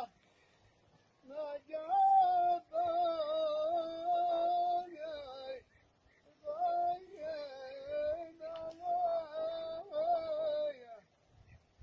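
A single high voice singing a slow, wavering chant in two long phrases, with a short break near the middle.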